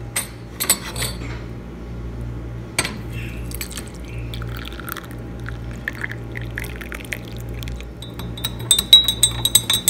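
Tea poured into a clear glass tea cup, a soft splashing pour of a few seconds after some light glass clinks. Near the end, a metal spoon stirs quickly in the glass with rapid bright ringing clinks.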